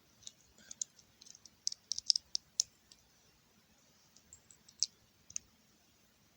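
Small plastic Lego bricks clicking and clattering as they are handled and pressed together, in short irregular ticks with a quick cluster about two seconds in and a few more near the end.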